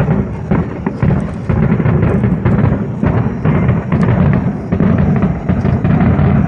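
Fireworks finale barrage: rapid, overlapping booms and crackles with no gaps, merging into a continuous rumble like a drum roll.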